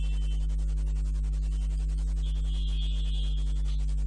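Steady low electrical hum, with a faint high-pitched tone for about a second and a half near the middle.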